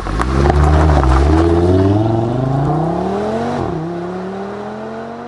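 Audi TT RS's turbocharged five-cylinder engine accelerating away through the gears. The note climbs, drops at upshifts about a second and a half and three and a half seconds in, and fades steadily as the car drives off.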